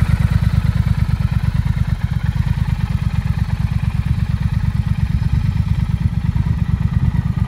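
Triumph Speed Twin 1200's 270-degree-crank parallel-twin engine idling steadily, its exhaust beating in a rapid, even pulse with no revving.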